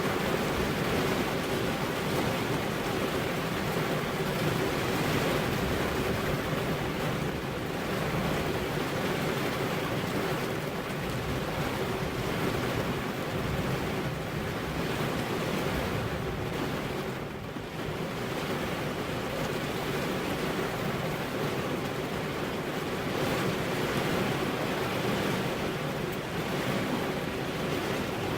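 Steady rainfall, an even wash of noise that eases briefly about two-thirds of the way through.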